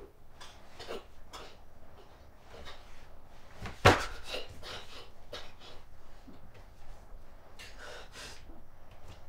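A woman breathing in short, uneven breaths, with one sharp knock about four seconds in, the loudest sound.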